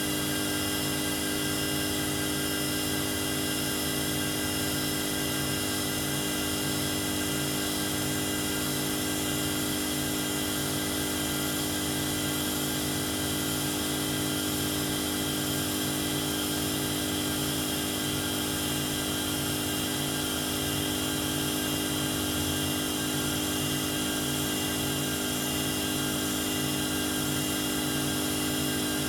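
Multi-function automatic lathe running steadily while machining small-diameter parts, a constant machine hum with several steady whining tones.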